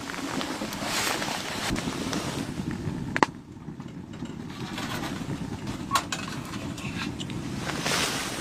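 Steady wind noise with gusts swelling about a second in and again near the end, broken by two sharp clicks about three and six seconds in.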